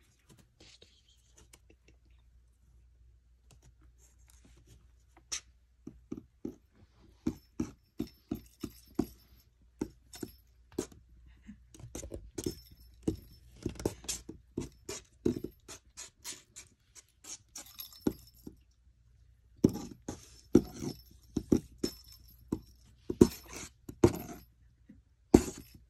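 Kittens scrabbling and playing in a cardboard box, one batting a hanging toy ball: irregular taps, scratches and knocks, with a light jingle now and then. They start a few seconds in and are busiest near the end.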